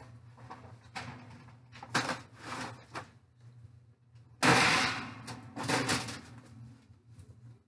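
Foil pans of baked chicken drumsticks being pulled from an electric oven and set on the stovetop, with light knocks and foil clatter, then the oven door shutting with a loud bang about four and a half seconds in, followed by more clatter.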